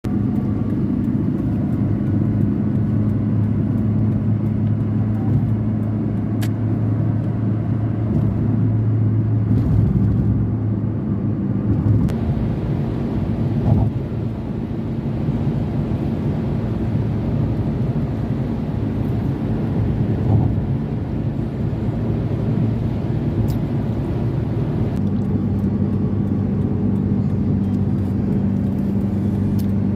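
Motor vehicle running steadily on the road, a continuous low engine and road hum whose pitch balance shifts a couple of times without any clear revving.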